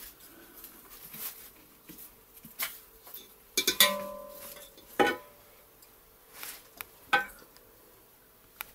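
A metal spoon stirring liquid in an enamel pot and clinking against its side. The sharpest clinks come about four, five and seven seconds in, and the first rings briefly.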